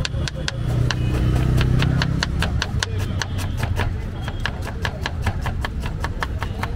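Kitchen knife chopping red onion on a plastic cutting board in a fast, even rhythm of about five or six strokes a second, over a low steady rumble.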